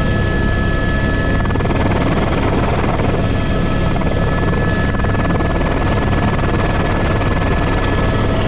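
Airbus H125 (AS350 B3) helicopter heard from inside the cockpit, running steadily. The single turboshaft engine and rotor make a constant loud noise, with a low hum and several steady high whining tones over it.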